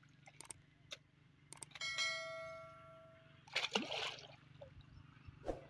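A couple of sharp clicks, then a single bell-like ding about two seconds in that fades over about a second and a half: the sound effect of an on-screen subscribe-button animation. Around it, a spade digs and scoops wet mud in a flooded irrigation ditch, with splashing near four seconds in and again near the end, over a faint steady low hum.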